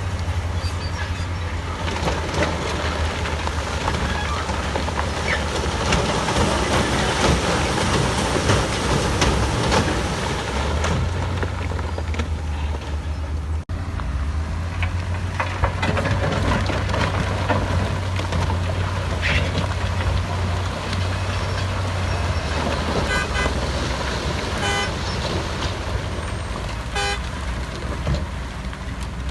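Heavy diesel earthmoving machinery running steadily under load, with the rough clatter and knocks of the work going on. A few short beeps sound near the end.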